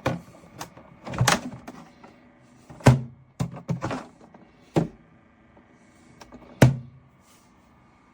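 Small thermoelectric mini fridge being handled: about seven knocks and thuds, like its small door and plastic body being opened, shut and set down, over the steady hum of its running cooling fan, which the reviewer calls loud. The hum stops at the end.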